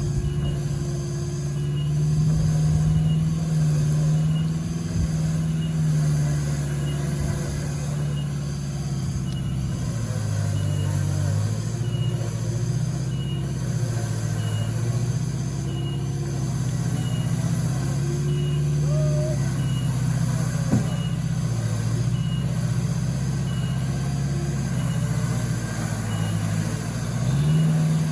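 Off-road 4x4's engine running at low revs, its pitch slowly rising and falling as it works along the trail, with a faint tick repeating about once a second.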